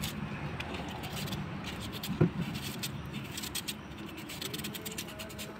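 Knife shaving pieces off a green mango held in the hand: a run of short, quick scrapes, with a single dull knock about two seconds in.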